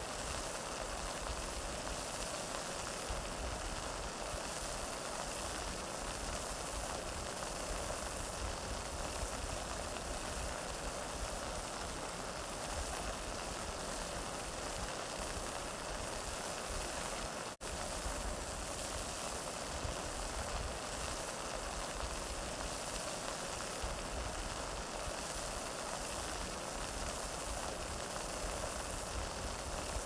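Waterfall: steady rushing water, an even hiss spread from deep to high pitches, broken by a momentary gap about 17 seconds in.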